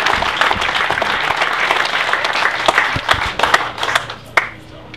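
Crowd applauding, thinning to a few last claps about four seconds in.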